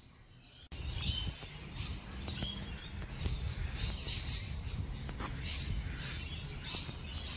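Small birds chirping in short, repeated calls over a steady low rumble, starting abruptly under a second in.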